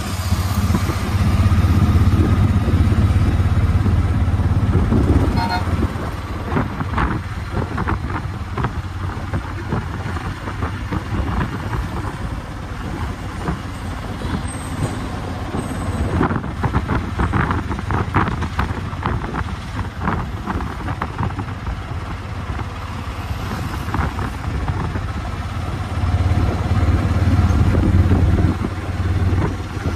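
Auto-rickshaw's engine running as it drives, with road and wind noise heard from inside the open cab. It is louder in the first few seconds and again near the end.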